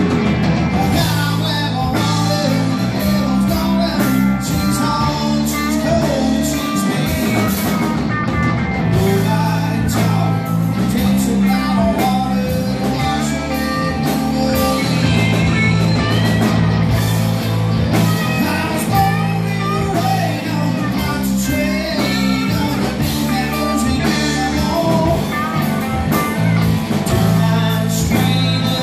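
Live rock band playing in a bar: electric guitars, bass guitar and drum kit going steadily through an instrumental stretch of the song.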